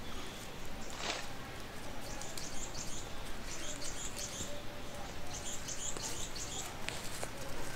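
Birds chirping in short, quick bursts of high notes over a steady outdoor hiss, with a brief rustle-like noise about a second in.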